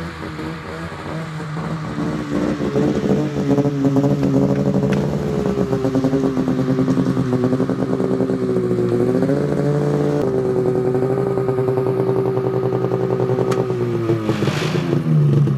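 Snowmobile engine running as the sled rides closer, growing louder over the first few seconds. Its pitch dips briefly about two-thirds of the way through, then drops as the sled slows and stops near the end.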